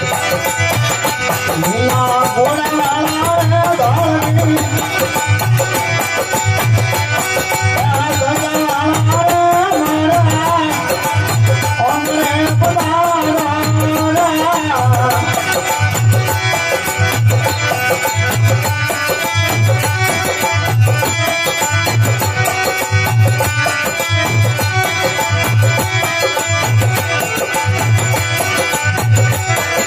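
Indian devotional folk music: a deep drum keeps a steady beat throughout. A wavering melody line rides over it and drops out about halfway, leaving the beat and a sustained accompaniment.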